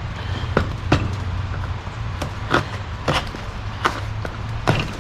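A series of short clicks and knocks, about six in all at uneven intervals, as parts and their packaging are handled, over a steady low hum.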